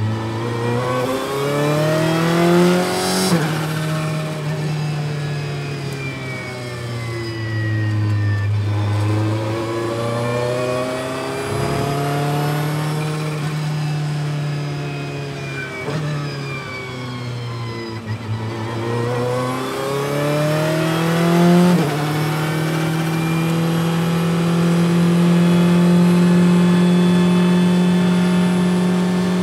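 Ferrari 488 GT Modificata's twin-turbo V8, heard from inside the car, rising and falling in pitch through the gears. There is a sharp click and drop in pitch at an upshift a few seconds in and again about two-thirds through, and the engine holds a steady pitch near the end.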